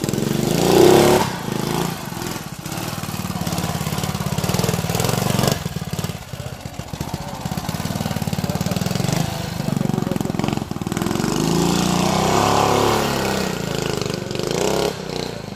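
The 1952 Tobec motorcycle's engine running at low revs while it is ridden over rough ground, revving up briefly about a second in and again around twelve seconds in. A few short knocks sound in between.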